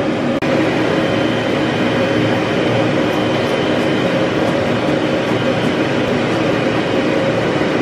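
Pet grooming blow dryer running steadily, a loud even rush of air with a motor hum, broken by a brief dropout about half a second in.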